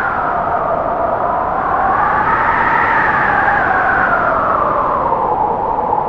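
Wind blowing: a steady rushing noise with a howl whose pitch rises to a peak about three seconds in and then falls again.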